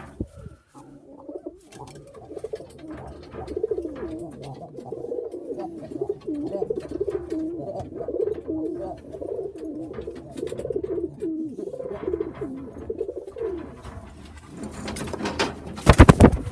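Pigeons cooing, a run of repeated low wavering coos. Near the end comes a short, loud clatter.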